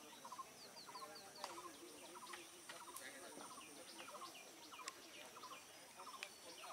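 Faint bird calls: clusters of short chirps repeated again and again, some with quick falling notes.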